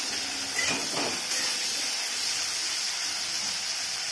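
Flat beans sizzling steadily as they fry in hot mustard oil in a steel kadai.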